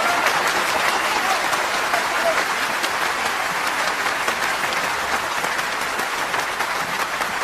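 Audience applauding: a dense, steady patter of many hands clapping that fades a little near the end.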